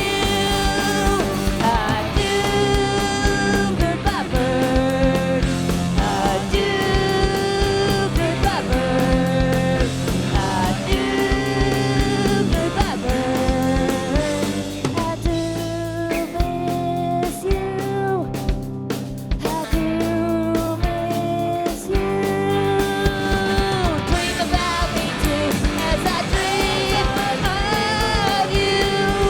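Punk rock band playing live: distorted electric guitars, bass and drums with sung vocals, driving and loud, easing into a thinner, slightly quieter passage around the middle before building back up.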